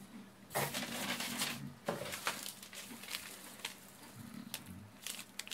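Plastic snack wrapper rustling and crinkling as a packet is taken out of a cardboard box, in irregular bursts.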